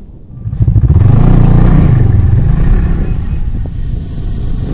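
Snowmobile engine starting up loud about half a second in and revving, its pitch rising and falling.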